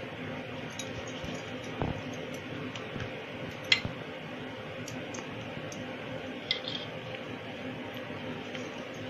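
Quiet handling sounds of dough balls being rolled by hand and set on a steel plate: a few light clicks and taps, the sharpest about four seconds in, over a steady low hum.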